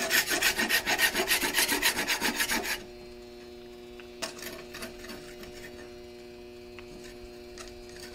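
Griddle scraper scraping oiled, burnt-on barbecue sauce off a hot electric flat-top griddle in quick, rapid strokes for about three seconds, then a few lighter scrapes. A steady low hum runs underneath.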